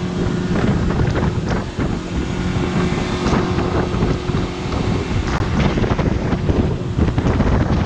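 Wind buffeting the microphone on a motorboat under way, with the boat's engine running underneath and water rushing past.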